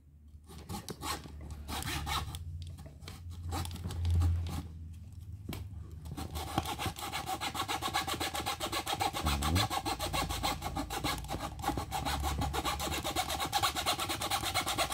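Hand-held U-frame fret saw cutting through MDF board with rasping back-and-forth strokes. The strokes are uneven, with short pauses, at first, then fast and steady from about six seconds in.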